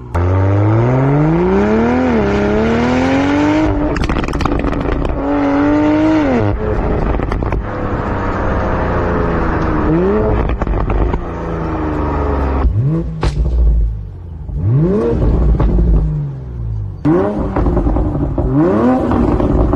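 BMW Z4 G29 3.0-litre turbocharged inline-six revving through an aftermarket valved catback exhaust, its pitch climbing and dropping again and again. A sharp crack sounds about two-thirds of the way in.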